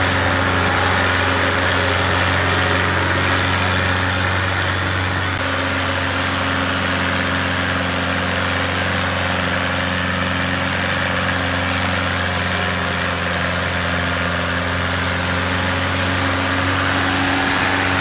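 Diesel tractor engine running steadily under heavy load, pulling a disc harrow through the soil while its exhaust pours black smoke; the hum holds an even pitch throughout.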